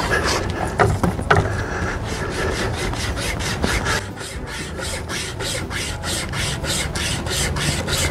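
Pocket wire saw with finger rings being pulled back and forth across a wooden branch, each stroke a short rasp as the wire cuts into the wood; the strokes settle into a quick, even rhythm about halfway through.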